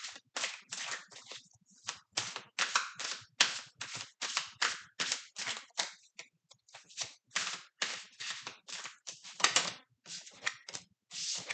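A deck of tarot cards being shuffled by hand: a run of short papery slaps and rustles, about two or three a second, with a couple of brief pauses.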